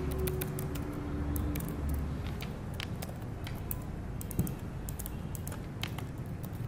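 Typing on a computer keyboard: irregular key clicks, several a second, with uneven gaps between them.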